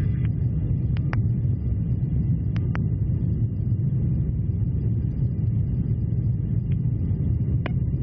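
Steady low rumble of an aircraft in flight, with a few brief faint radio clicks, about one second in, between two and three seconds in, and again near the end.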